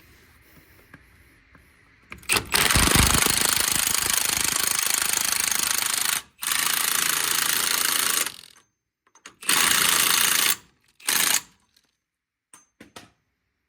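Impact wrench with a 36 mm socket hammering a CV axle nut down tight, in four bursts, the first about four seconds long and each later one shorter.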